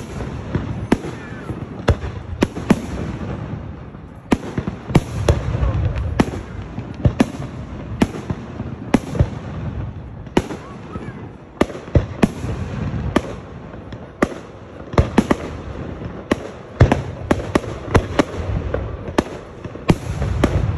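Aerial firework shells bursting in rapid, irregular succession: sharp bangs about one or two a second, over a continuous low rumble.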